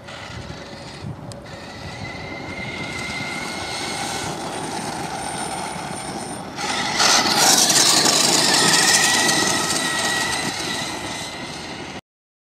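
Traxxas T-Maxx RC monster truck with a Turnigy TrackStar 550 brushless motor driving on dirt. Its motor and drivetrain give a high whine over a rushing tyre noise. The sound builds, gets sharply louder about seven seconds in, fades, and cuts off just before the end.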